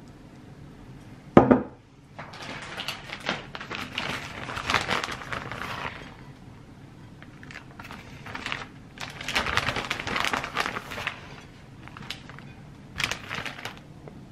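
A bowl set down on a table with one loud thunk, then a plastic bag of grated cheese crinkling in spells as the cheese is shaken out over bowls of pasta.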